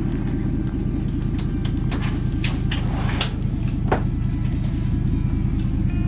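Pickup truck engine idling steadily. A few sharp knocks from inside the metal horse trailer come between about two and four seconds in, as the horse shifts and is tied up.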